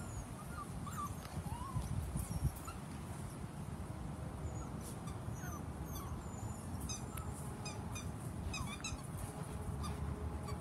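Dalmatian puppies whining in short, high, bending squeaks, scattered through, over a steady low rumble.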